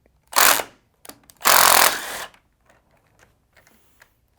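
A power driver with a T30 Torx bit running in two bursts, a short one and then a longer one, backing out the arm's tension screw, followed by faint small clicks of handling.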